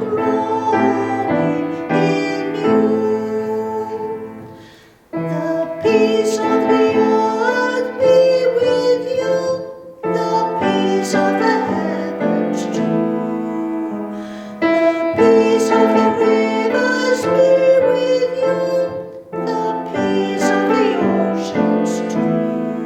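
Piano music played in phrases of about five seconds, each ending in a short dip before the next begins.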